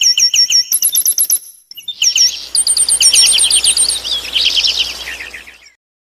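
Small bird chirping in fast runs of short, high, sweeping notes, with a brief break about a second and a half in and a faint hiss behind the second run.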